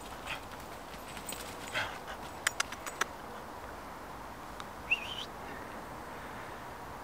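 A dog's paws rustling through dry fallen leaves, with a few sharp clicks. About five seconds in comes one short, high, wavering whimper from the dog, which has lost sight of its owner.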